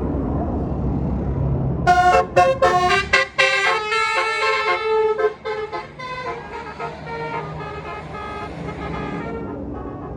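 Tour bus's basuri (telolet) musical horn playing a fast run of changing notes, starting about two seconds in, loud at first and then softer for several more seconds before stopping near the end. A bus engine rumbles before the horn starts.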